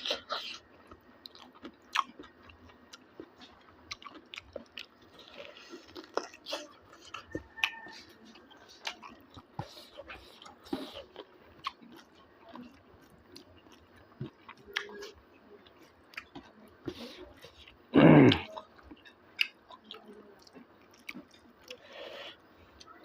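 A person chewing and biting a meal of pork and bamboo shoot, with many small mouth clicks and smacks. One short, loud sound from the throat comes about eighteen seconds in.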